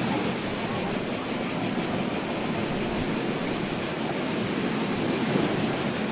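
Ocean waves washing on a beach in a steady wash of surf, with no single breaker standing out. Over it runs a high, rapidly pulsing buzz.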